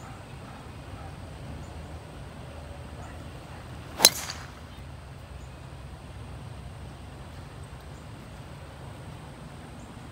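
Golf driver striking a ball off the tee: one sharp crack of impact about four seconds in.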